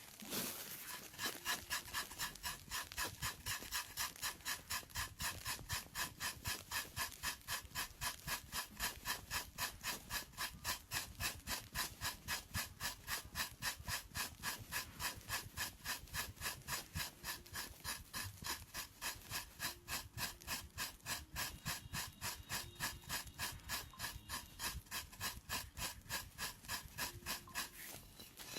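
A pedicure tool scraping skin off a foot with athlete's foot, in quick, even strokes of about three a second.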